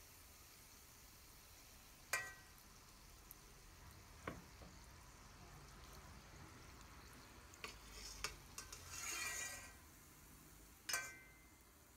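A steel slotted spoon clinks sharply against an enamel frying pan several times as sago balls are turned and lifted out of the hot oil, over faint sizzling of the frying, with a brief louder sizzle about nine seconds in.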